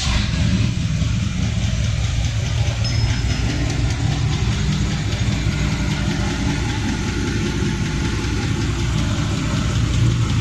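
Car engine running steadily at a low, even pitch, much like idling.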